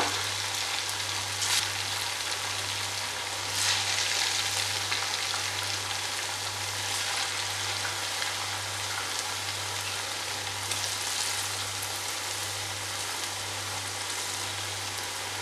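Ribbon murukku dough of rice flour and coconut deep-frying in hot oil, freshly pressed into the pan: a steady sizzling hiss of bubbling oil that swells briefly now and then.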